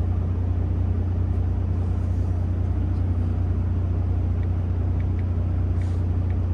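Kenworth semi truck's diesel engine idling steadily, a constant low hum heard inside the cab, with a few faint clicks in the second half.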